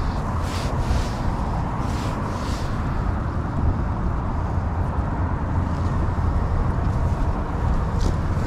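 Steady rumble of expressway traffic, a continuous low drone with no distinct events.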